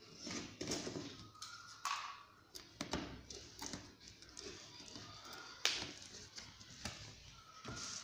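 A box cutter and hands working on a cardboard box: scattered light scrapes, taps and knocks, with one sharper knock a little past the middle.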